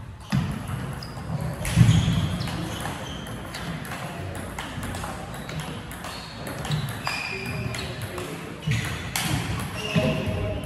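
Table tennis rally: the ball clicking back and forth off the bats and table, over background voices in the hall.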